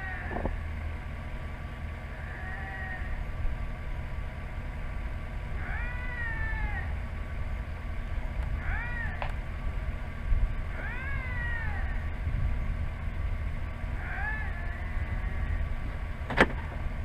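Canada lynx giving drawn-out, cat-like meowing calls, about five of them two to three seconds apart, each rising and then falling in pitch. A vehicle engine idles low underneath, and there is a sharp click near the end.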